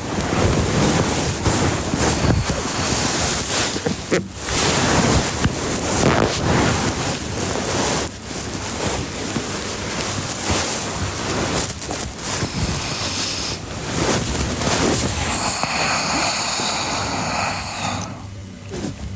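A sleeping girl snoring loudly close to the microphone: a rushing, noisy breath that swells and drops away every three to four seconds.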